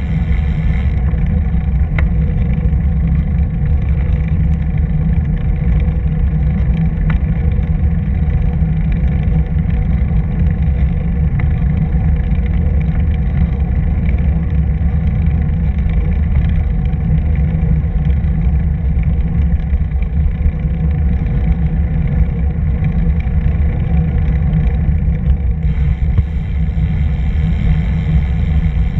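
Steady low wind rumble buffeting the microphone of a camera moving along a bike path, heavy and unbroken throughout.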